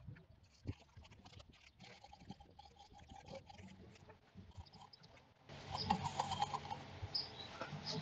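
Faint clicks, scrapes and rustles of hands working at a motorcycle chain. They grow louder about five and a half seconds in, when a rag wipes the chain.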